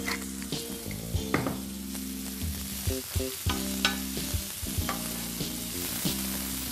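Chopped onion and garlic sizzling in hot olive oil in a frying pan, with a wooden spoon stirring and scraping the onion around the pan in irregular strokes.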